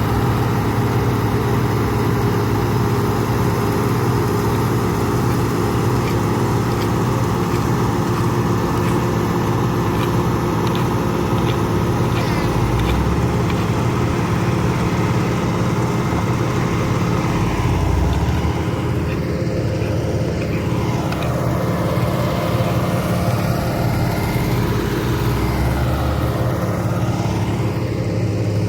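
Heavy diesel engine of road-paving machinery running steadily at a constant speed, with a run of light clicks a little before the middle.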